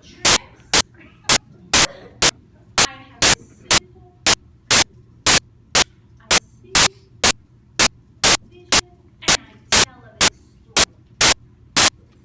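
Loud, sharp clicks repeating evenly about twice a second, over faint background voices and a low hum.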